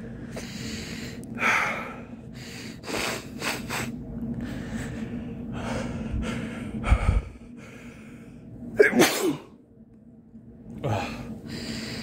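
A man's sneeze building up: a series of short, sharp gasping in-breaths, then a loud sneeze with a falling pitch about nine seconds in, followed by a shorter breathy burst. He is sneezing from a tickling nose.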